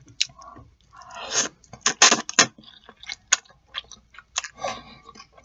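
A person slurping and chewing noodles in black bean sauce, with two louder slurps about one and two seconds in, followed by a run of short wet mouth smacks.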